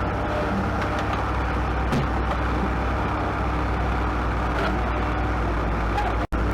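Heavy equipment engine running steadily under load, a constant low drone, with a sudden brief dropout near the end.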